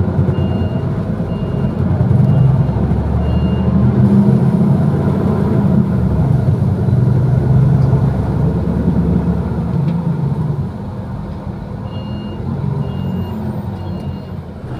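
City bus engine running, heard from inside the cabin as a steady low rumble that grows louder about two seconds in and eases off near the end. A high electronic beep repeats about twice a second for the first few seconds and starts again near the end.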